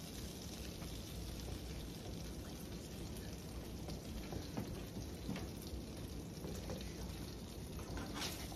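Grilled cheese sandwiches frying in a skillet with a steady sizzle, with a few light clicks of a spatula and fork against the pan, the sharpest near the end.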